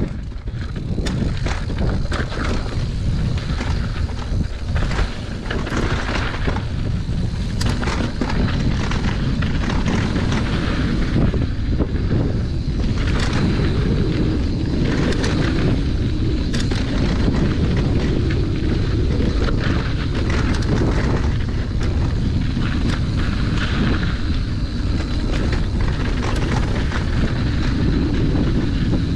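Mountain bike descending a dirt trail: wind rumbling on the camera microphone, with tyres rolling and many short rattles and knocks as the bike goes over bumps.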